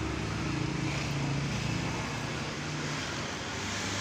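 Hot air rework gun blowing a steady stream of hot air, with a low motor hum under the hiss, as it is swept over a phone's CPU chip to heat it and reflow its solder balls onto the board.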